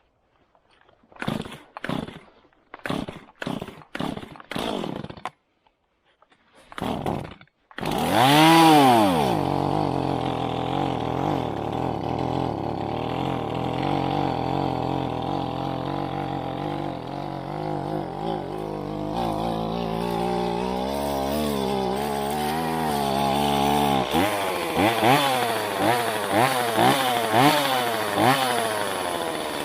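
Chainsaw being pull-started: a series of short bursts from pulls on the starter cord, then the engine catches about eight seconds in with a rev and runs steadily. Near the end it is revved up and down repeatedly, about once a second.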